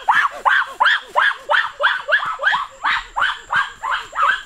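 An animal's rapid, repeated yelping calls, about four a second, each rising then falling in pitch.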